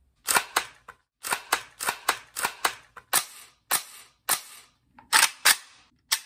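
Sharp metallic clicks and clacks of rifles being handled, an AR-style rifle and an AK-pattern firearm worked by hand. They come singly and in quick pairs, roughly two a second.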